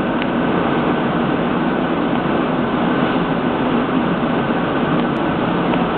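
Steady, even rumbling noise with no distinct events.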